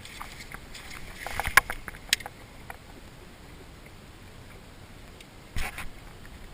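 Sharp knocks and splashes of a freshly caught bass being handled and dipped in the water beside a small fishing boat. A cluster comes about one and a half to two seconds in and a shorter one near the end, over a low steady background.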